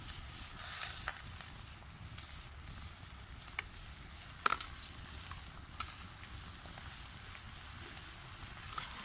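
Cinnamon and dried red chillies frying in hot oil: a steady sizzle that swells briefly about a second in, with a few sharp clinks or knocks around the middle.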